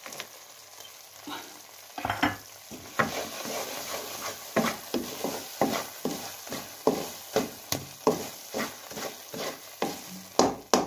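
A wooden spatula scrapes and stirs thick khoya (cooked-down milk) in a metal pan in quick, repeated strokes, about two or three a second, starting about two seconds in. A faint sizzle runs underneath from the ghee the mixture has released.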